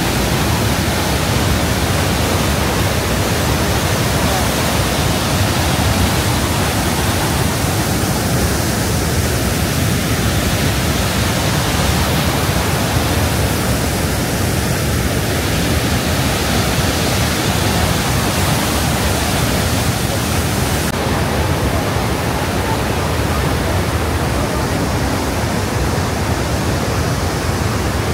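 Rhine Falls, a large waterfall, heard close up as a loud, steady rush of falling water. About two-thirds of the way through, the high hiss turns slightly duller.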